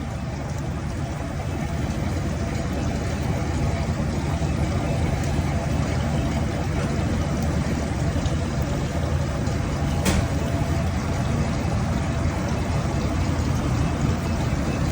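Steady low mechanical rumble with a faint hum, like heavy machinery running, and a single sharp click about ten seconds in.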